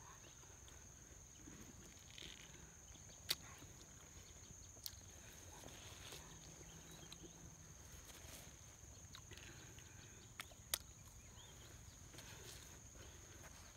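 Near silence with a faint, steady high-pitched insect drone throughout, and a few sharp mouth clicks and lip smacks from a person chewing segments of a sour citrus fruit, the loudest about three seconds in and near eleven seconds in.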